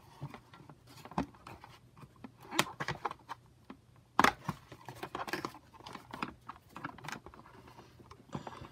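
Cardboard packaging and a plastic model horse being handled as the horse is worked loose from its box insert: scattered rustling and small clicks, with two sharper clicks about two and a half and four seconds in.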